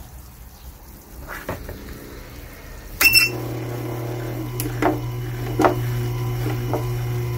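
A Tormek wet-stone sharpening machine is switched on with a sharp click about three seconds in. Its motor then runs with a steady low hum as the grindstone turns, with a couple of light knocks over the top.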